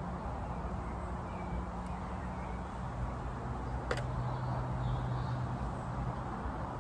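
Outdoor woodland ambience: a steady low rumble under a faint low hum that drops in pitch about three seconds in, a few faint small-bird chirps, and a single sharp click about four seconds in.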